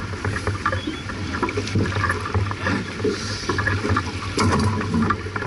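Wind and water noise aboard a J/24 racing sailboat under way, with irregular low thuds and a few sharp knocks from the boat.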